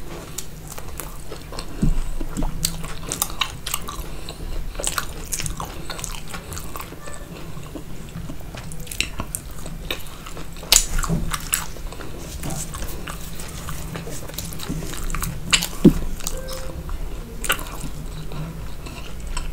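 Close-miked chewing of roti dipped in curry: irregular wet mouth smacks and clicks, a few louder than the rest, over a low steady hum.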